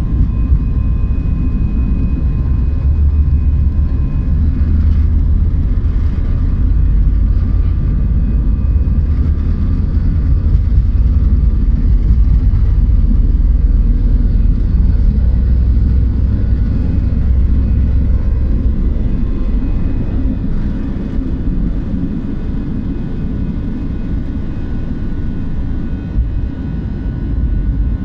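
An Airbus A320-family airliner's engines at takeoff thrust, heard from inside the cabin over the wing, with a heavy rumble of the wheels on the runway. About two-thirds of the way through the rumble eases off as the jet lifts off, leaving the steady engine noise of the climb.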